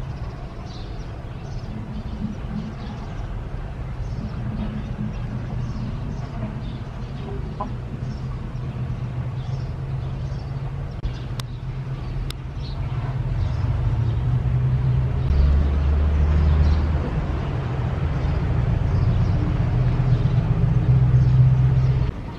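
A rooster clucking now and then over a steady low droning hum, which grows louder in the second half and cuts off suddenly near the end.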